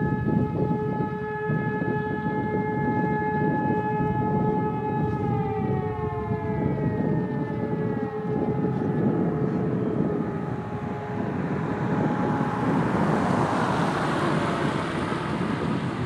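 Several distant E57 motor sirens sounding the fire alarm signal: one holds a steady chord while others wind down in falling glides, and the steady tone dies away about ten seconds in. A low rumble runs underneath, and in the last few seconds a broad rush of tractor noise swells up and drowns the sirens as the tractor passes close.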